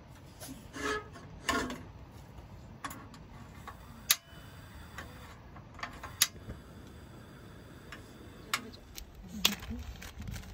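Coleman portable gas stove's piezo igniter clicking: sharp single clicks a couple of seconds apart, the loudest about four and six seconds in.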